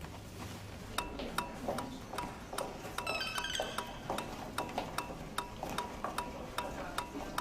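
Rhythmic electronic beeps from hospital equipment, short tones at one pitch, each with a click. They start about a second in and are played in an uneven rhythm like music. About three seconds in a brief higher beeping figure joins them.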